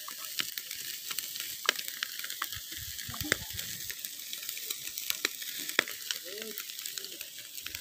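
Fish grilling over charcoal on a wire rack: a steady sizzling with frequent sharp crackles as soy sauce is squeezed from a bottle onto the hot fish.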